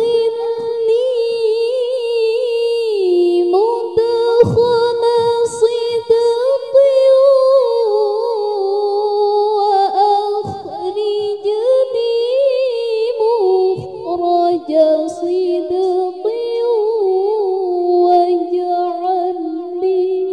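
A young woman's voice in melodic Quran recitation (tilawah), unaccompanied: long, ornamented phrases with quavering trills, held mostly on high notes, with a few brief breaks.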